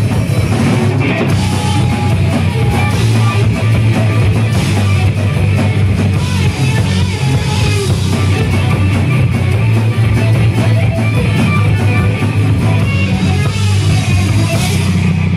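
Heavy metal band playing live: distorted electric guitars, bass guitar and a drum kit playing loud and without a break.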